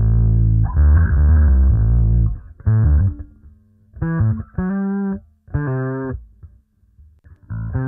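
Electric bass guitar played through the studio recording chain. A run of held low notes gives way, after about two seconds, to a few single notes picked out with pauses between them. The tone is dark, with little top end.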